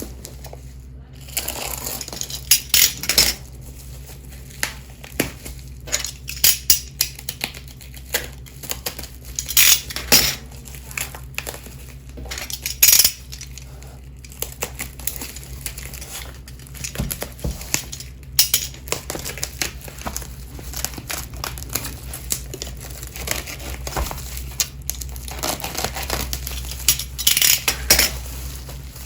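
Unboxing an RK61 mechanical keyboard: packaging crinkling and rustling, with irregular clicks and light knocks as plastic parts are handled.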